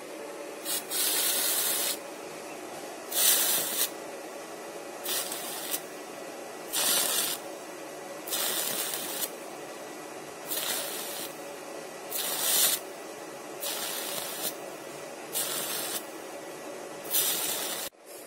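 Electro-etching of a knife's metal side plates, powered by a welding machine: an electrolyte-soaked cotton swab hisses and sizzles each time it is pressed onto the stencilled metal and current flows. There are about ten short bursts, one every second or two, over a steady hum.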